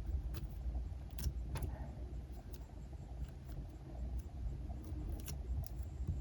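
Hands squeezing and handling squishy toys close to the microphone: a low rubbing rumble with a few light clicks and taps scattered through it.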